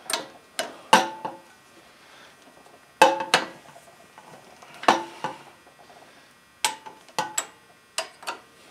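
Torque wrench with socket and extension working the cylinder head bolts of a single-cylinder flathead small engine: about thirteen sharp metallic clicks and clinks, several in pairs a third of a second apart. The bolts are being drawn down in a cross pattern to a first torque setting of 20 foot-pounds.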